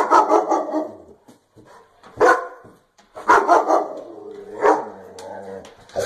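German shepherd barking, several loud barks at uneven intervals with short pauses between.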